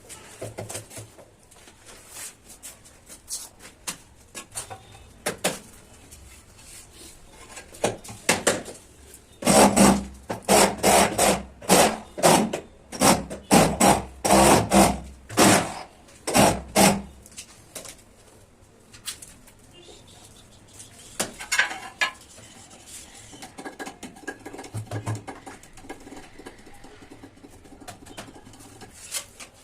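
Metal trowel scraping tile adhesive, about a dozen quick strokes in a row near the middle, with scattered light clicks and scrapes around them.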